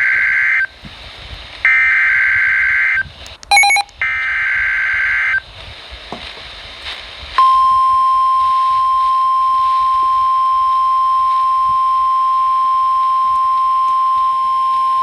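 Emergency Alert System SAME digital header: three harsh data bursts about a second apart, with a brief chirp between the second and third. About seven seconds in, the steady single-pitch 1050 Hz NOAA Weather Radio warning alarm tone starts and holds, signalling that a warning message follows.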